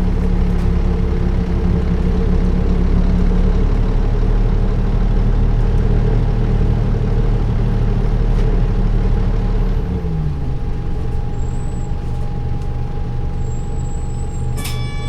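Nissan Diesel Space Runner bus's PF6HT turbocharged straight-six diesel engine running under way. About ten seconds in, the engine note drops and settles lower. A brief high-pitched tone sounds near the end.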